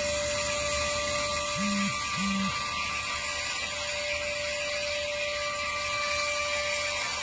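Vacuum cleaner running steadily with a high motor whine over a rushing hiss. Two short low hums come about a second and a half and two seconds in.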